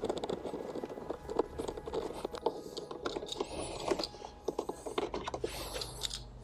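Ratchet clicking rapidly as an 8 mm bolt holding a Ford Focus door card is undone, with a couple of short high squeaks.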